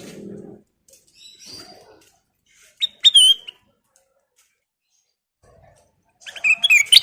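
Kutilang emas, a bulbul, calling: a short phrase of sharp notes about three seconds in, then a fast run of loud song notes starting near the end.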